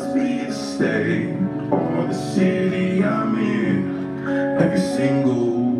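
Instrumental hip-hop backing track playing through the venue's speakers: sustained chords that change every second or so, with sharp percussive hits.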